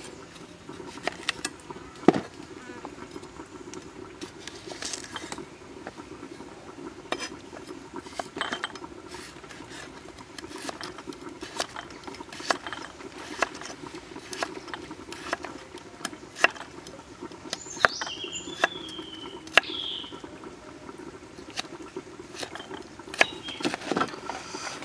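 Kitchen knife slicing a carrot on a thick round wooden chopping block: irregular sharp knocks as the blade meets the board, some of them loud.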